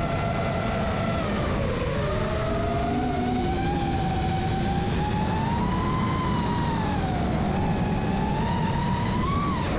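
FPV quadcopter's brushless motors and propellers, spinning props out, whining in several tones that glide up and down as the throttle changes, over a steady rush of wind past the onboard camera. Near the end the throttle stick is at zero, yet the motors keep whining, with the pitch rising slightly just before the end.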